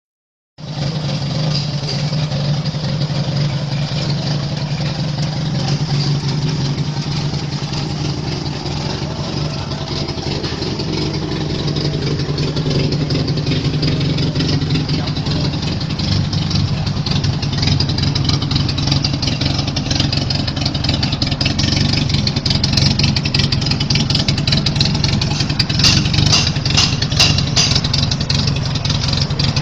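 Toyota Corolla KE30 with a swapped-in Toyota 5K 1.5-litre four-cylinder pushrod engine, running steadily at around idle. It grows a little louder over the second half, with a few sharp clicks near the end.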